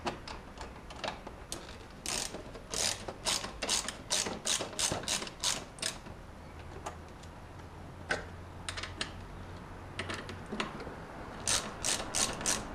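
Hand socket ratchet clicking as a bolt is screwed in and snugged down, in runs of quick back-strokes broken by short pauses; the longest run comes about two seconds in.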